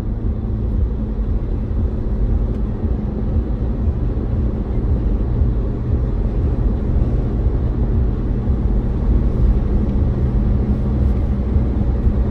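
Steady low road and engine rumble heard inside a car's cabin while driving at highway speed.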